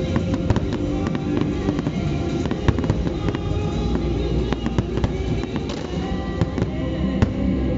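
Aerial fireworks display in a heavy barrage: many shells bursting in rapid, overlapping bangs and crackles, with music playing along.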